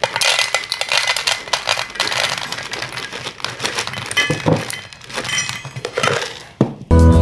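Dry kibble poured into a stainless steel bowl, the pieces clinking on the metal and rattling against each other in a dense patter, with a couple of brief lulls as the pour slows.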